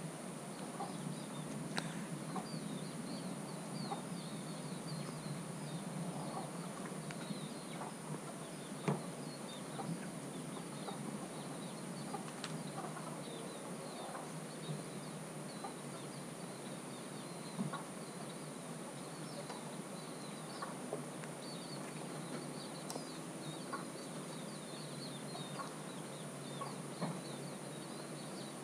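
Rural outdoor ambience: chickens clucking now and then, with many small chirps high up and a faint, steady high whine over a constant hiss.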